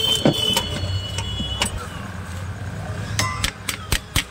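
Irregular sharp metal clicks and taps with short ringing as the parts of a Bajaj electric iron's soleplate and heating element are handled and tapped with a tool, bunching into several quick knocks in the last second.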